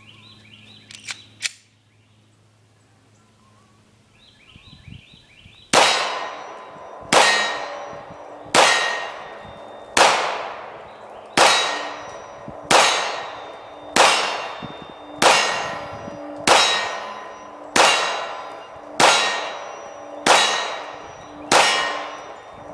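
Glock 21 SF .45 ACP pistol fired thirteen times at a steady pace, about one shot every 1.3 seconds, each report ringing out as it fades. Two small clicks come about a second in, before the shooting starts.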